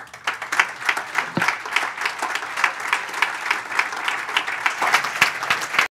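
Audience applauding: many hands clapping in a dense, steady patter that cuts off abruptly near the end.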